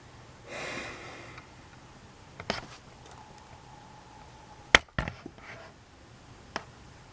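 A few sharp clicks of a computer mouse and laptop being handled, the loudest about five seconds in, with a soft rustle near the start.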